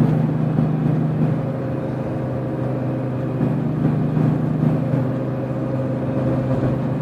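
Steady humming drone of worn wheel bearings inside a moving Mazda MX-6, over road and engine noise; the owner is pretty sure the front bearings are bad.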